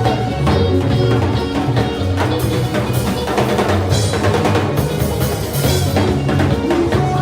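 Music with a drum beat and a bass line, no singing.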